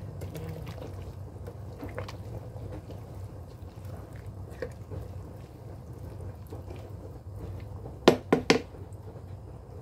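A utensil stirring laing, taro leaves and pork in simmering coconut milk, in a nonstick pan: wet sloshing and small clicks. About eight seconds in, the utensil knocks sharply against the pan three or four times in quick succession.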